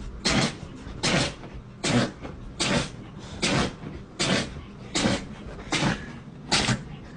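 A dog sneezing over and over in a fit, nine sharp sneezes at a steady pace of about one every 0.8 seconds.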